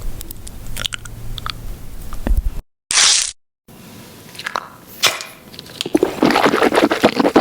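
Close-miked crunching and scraping sounds in short cut-together clips, broken twice by brief silences, with a short hissing burst about three seconds in and denser scraping near the end.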